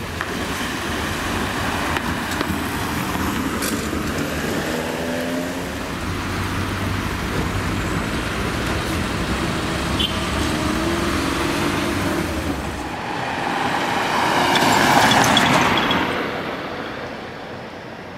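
Road traffic: the engines and tyres of passing cars and buses. The engine notes rise and fall in pitch, and one vehicle passes close, growing loudest about fifteen seconds in and then fading away.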